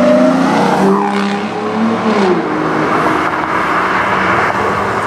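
Aston Martin DB9's V12 engine accelerating as the car drives past and away, its pitch rising and then dropping about two seconds in.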